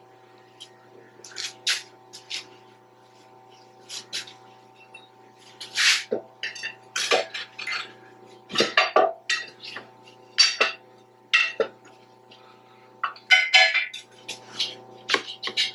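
Metal hand tools clinking, knocking and scraping against steel machine parts in irregular short strikes, with a longer scrape near the end, over a faint steady hum.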